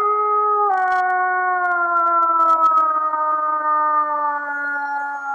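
One long wolf howl: a single voice held without a break, its pitch sliding slowly downward before it drops away at the end.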